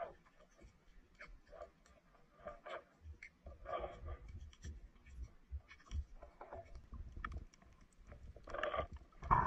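Underwater sound picked up by the camera in shallow water: scattered sharp clicks and crackles over a low rumble, with a few short bubbling or sloshing bursts, the loudest near the end.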